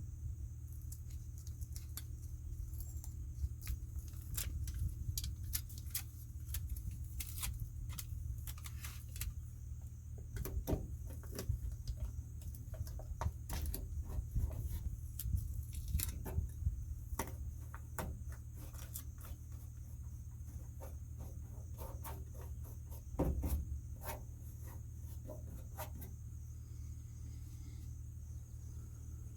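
Scattered light metallic clicks and clinks of small parts and hand tools being handled during door reassembly, with a louder knock about three-quarters of the way through, over a steady low hum.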